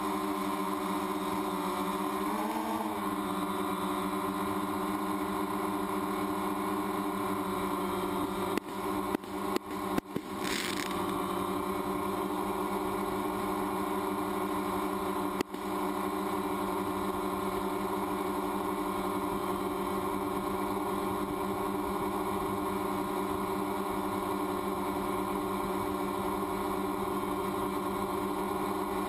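Quadcopter drone's motors and propellers whining steadily at a hover, the pitch wavering briefly a few seconds in. A handful of short sharp cracks and a brief hiss come about a third of the way through, with one more crack a little later.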